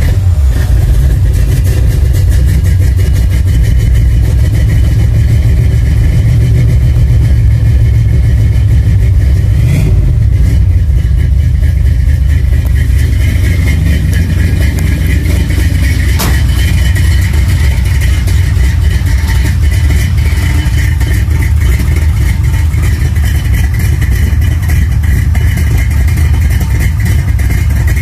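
1968 Ford F-250 Ranger's big-block V8 running steadily, just caught from a cold start without the choke.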